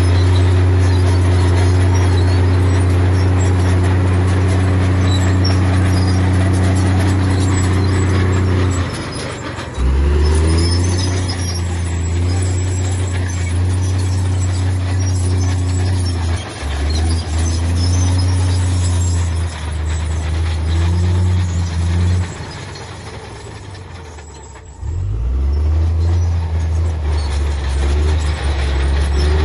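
Heavy diesel engine of earth-moving machinery running hard under load. The engine eases off about nine seconds in, and again for a few seconds near the end, rising back up each time.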